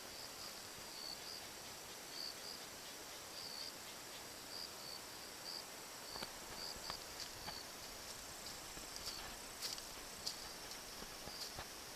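Crickets and other insects singing: a steady high trill, with short chirps repeating through the first half. From about halfway, scattered sharp clicks sound over it.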